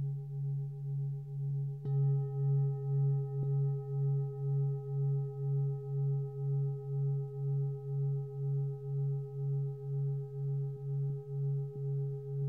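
A 27.5 cm lingam singing bowl ringing with a deep tone that swells and fades in an even beat, about twice a second, with fainter higher overtones above it. About two seconds in it is struck again, and the ring grows louder and brighter.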